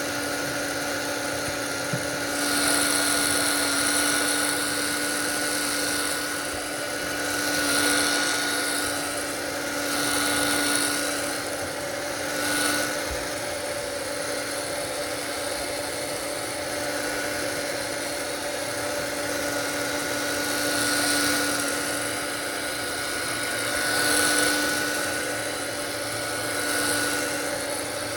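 A small electric motor running steadily: a constant whine with a hiss of rushing air that swells every two to three seconds.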